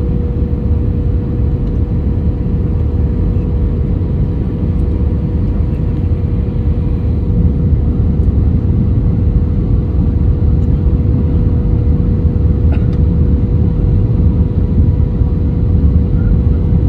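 Jet airliner cabin noise: a steady, loud low rumble of engines and rushing air, with a constant hum running through it.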